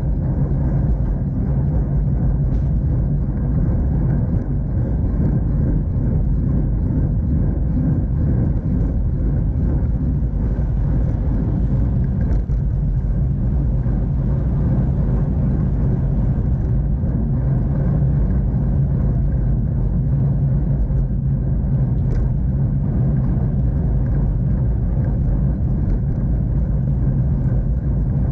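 Steady, muffled low rumble of wind and tyre noise on a bicycle-mounted camera while riding.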